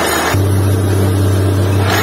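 Truck-mounted borewell drilling rig's engine running hard and steadily, a loud deep hum. About a third of a second in it turns abruptly duller and deeper, then brightens again just before the end.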